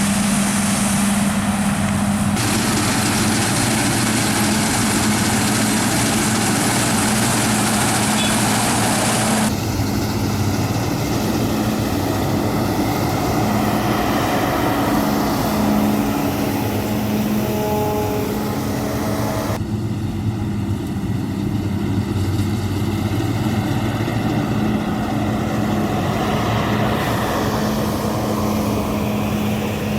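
Claas combine harvester's diesel engine and threshing machinery running steadily under load, a constant hum. The sound changes abruptly a few times, about 2, 10 and 20 seconds in.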